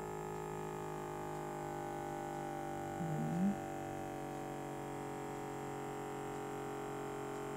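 Gamma blood pressure monitor's small electric air pump running steadily to inflate the arm cuff, its hum slowly dropping in pitch as the cuff pressure climbs toward 190 mmHg. A brief vocal sound comes about three seconds in.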